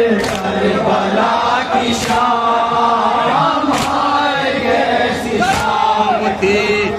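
Group of male mourners chanting a Muharram noha refrain in unison, with sharp chest-beating slaps (matam) about every two seconds.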